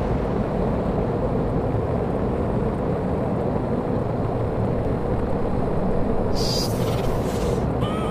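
Steady wind and road noise rushing over the microphone of a camera on a racing bicycle at speed, with a short higher hiss about six and a half seconds in.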